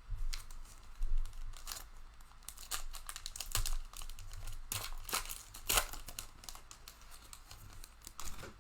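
Crinkly plastic wrapper of a football trading-card pack crackling and tearing as it is handled and ripped open, in many short, irregular crackles.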